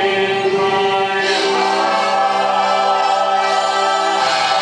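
Musical-theatre cast singing in chorus, the lead and the ensemble holding long notes together; the chord shifts about a second in and again near the end.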